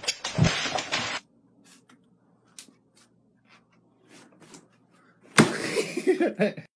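A white plastic laundry basket tipping over with a cat in it: a sudden clatter about five and a half seconds in, followed by a second of scrabbling and bumping. Near the start there is a short burst of thumps and scuffling, with scattered small knocks in between.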